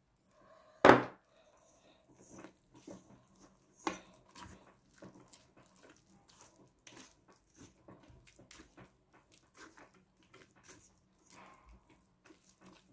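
Spatula stirring and scraping sticky bread dough in a stainless steel mixing bowl: soft irregular knocks and scrapes, with a sharp knock against the bowl about a second in and another about four seconds in.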